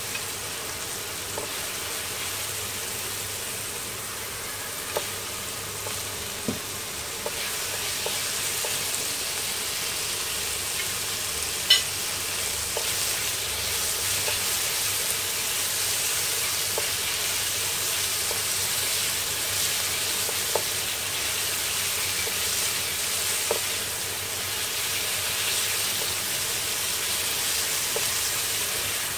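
Oil sizzling in a wok as chopped garlic and chillies fry, then a fuller, steady sizzle of sliced meat stir-frying while a spatula stirs and scrapes, the sizzle growing a little louder about seven seconds in. A few sharp knocks of the spatula on the pan, the loudest about twelve seconds in.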